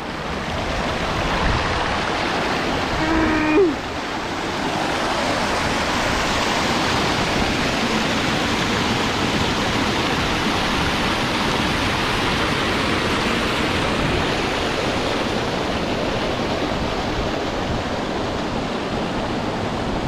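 Stream water rushing and splashing down a narrow rock chute: a steady, unbroken rush. A short vocal sound breaks in about three seconds in.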